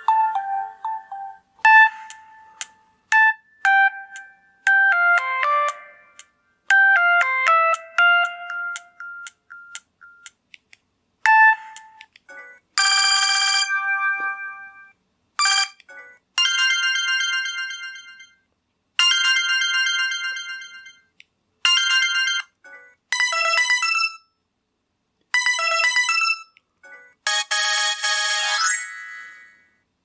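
Samsung SGH-G600 mobile phone playing its built-in ringtones through its small loudspeaker. Sparse single chiming notes come first. From about twelve seconds in, a run of short electronic melody previews follows, each a second or two long and cut off before the next, as the ringtones are scrolled through one after another.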